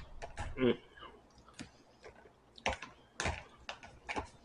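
Metal fork clicking and scraping against a plastic bowl as noodles are picked out, a handful of scattered light clicks, with a short vocal sound under a second in.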